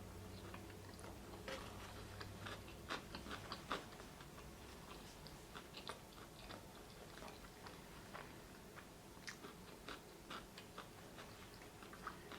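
Faint, close-up mouth sounds of someone chewing a mouthful of stuffed-crust pizza: many small wet clicks and smacks, busiest in the first few seconds.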